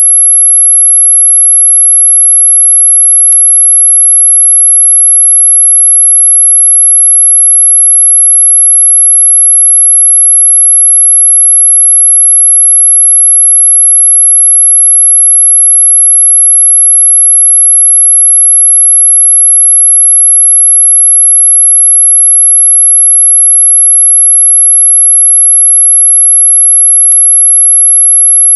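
Anti-mosquito repellent tone: a single very high-pitched pure tone, held steady and unchanging. There are two faint ticks, one about three seconds in and one near the end.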